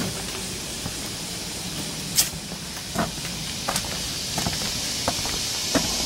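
Footsteps of a person walking, about one every three-quarters of a second from about two seconds in, over a steady hiss.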